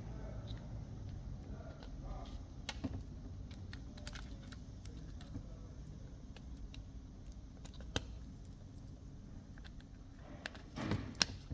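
Scattered small clicks and taps of hands handling tools and parts at a workbench over a low hum, with one sharp click about eight seconds in and a few louder knocks near the end.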